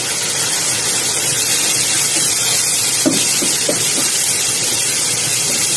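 Steady sizzling hiss of chicken and shrimp cooking in sauce in a wok, stirred with a silicone spatula.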